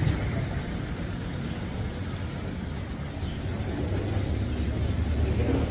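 Steady low rumble of street background noise, with no distinct events.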